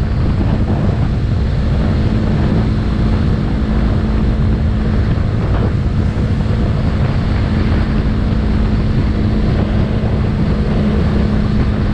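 Yamaha YZF-R3's parallel-twin engine holding a steady cruising speed, its drone unchanging in pitch, buried in heavy wind rush over the microphone.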